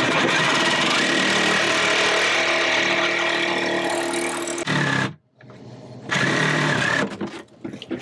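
DeWalt cordless reciprocating saw with an extra-long blade cutting through the thick fiberglass of an old built-in freezer box. The saw runs steadily with a whine for almost five seconds, stops sharply, runs again for about a second, then cuts in and out near the end.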